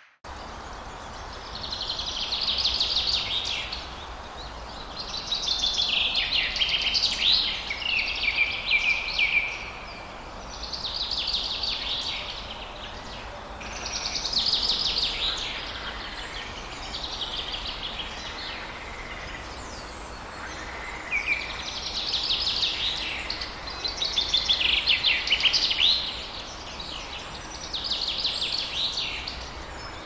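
A songbird singing about eight phrases of fast, trilled song, one every few seconds, over a steady low background rumble.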